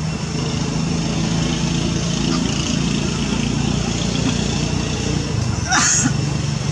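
A steady low motor drone runs throughout. A little under six seconds in, a single short shrill cry sweeps sharply upward, the call of a baby monkey.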